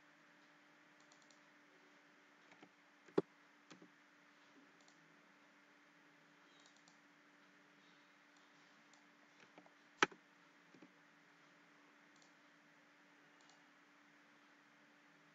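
Computer mouse clicks and keyboard key presses: a few sharp clicks, the two loudest about three seconds in and about ten seconds in, with smaller ones around them, over a faint steady hum.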